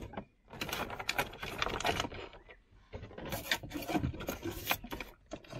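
Handling noise from work on the van's wiring: irregular clicks, knocks and rubbing as parts and cables are moved, in two spells of a second or two each.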